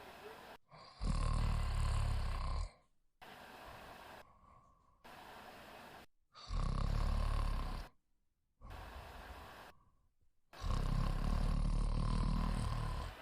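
A woman snoring loudly in her sleep: three long, deep snores about four to five seconds apart, the last the longest.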